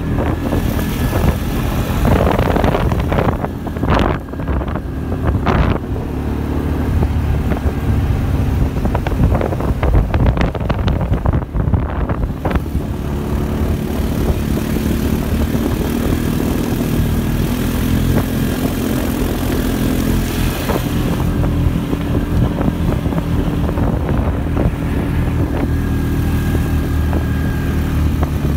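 ATV engine running steadily as the quad is ridden along a gravel road. Brief scraping or rustling noises come a few times in the first dozen seconds.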